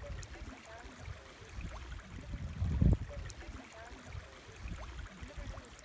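Shallow stream babbling and gurgling over stones, with a low rumble on the microphone about three seconds in.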